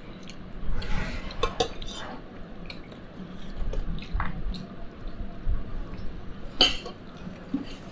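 Scattered light clinks and knocks of tableware, a plate and a drinking glass, handled at a meal table, with one sharper clink about six and a half seconds in.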